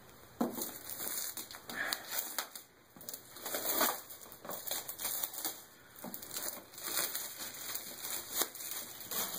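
Clear plastic wrap crinkling and tearing as it is pulled off a laptop's cardboard retail box, in a string of irregular crackles.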